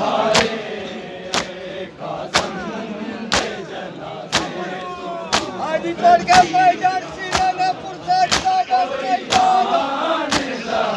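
A crowd of bare-chested mourners doing matam, beating their chests in unison with a sharp slap about once a second, over the voices of the crowd.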